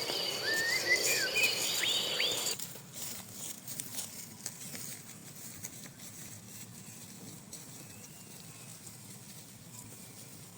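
A steady high-pitched insect drone with several chirping bird calls, which cut off suddenly about two and a half seconds in, leaving faint background noise with scattered soft ticks.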